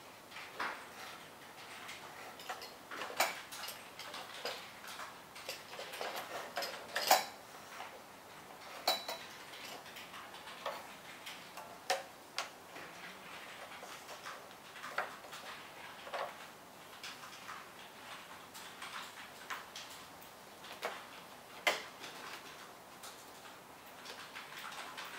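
Scattered light clicks and ticks at uneven intervals over a faint hiss, a few of them sharper and louder.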